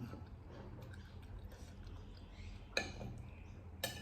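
Quiet eating at a table: faint chewing with two sharp light clicks about a second apart near the end, like a utensil touching a dish.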